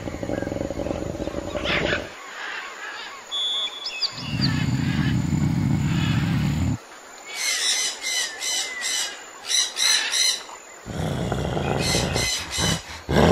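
Deep animal growls in several bouts of a second or two each, with bird chirps and whistles in a gap between them.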